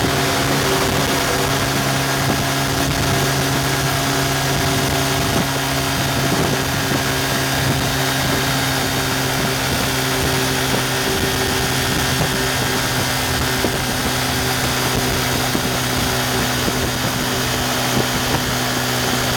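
Yamaha FZ150i single-cylinder four-stroke engine running hard at high revs, around eight to nine thousand rpm at highway speed, as a steady drone under a constant rush of wind noise. The pitch eases slightly as the bike slows from about 120 to 108 km/h.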